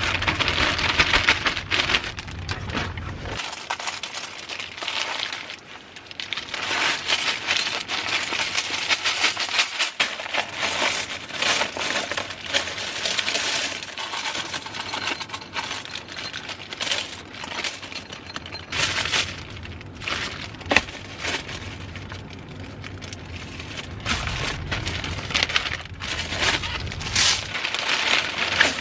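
Coins clinking and jingling continuously as they are handled and collected out of a vending machine's coin box.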